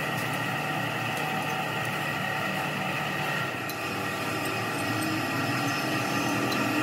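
Steady mechanical hum of running workshop machinery, holding several steady tones without change. A few faint metallic clicks come from the spanner and socket on the hub bolts of a tractor bull gear.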